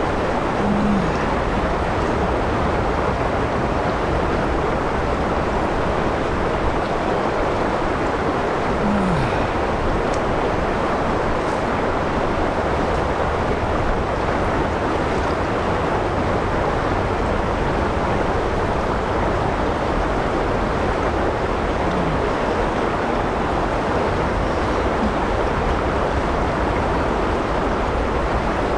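Shallow river water rushing steadily through a rocky riffle around a wading angler's legs.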